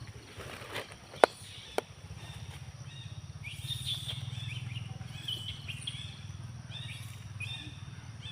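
Short high chirping calls, falling in pitch and repeated every half second or so from about three seconds in, over a steady low hum. Two sharp clicks come about a second in.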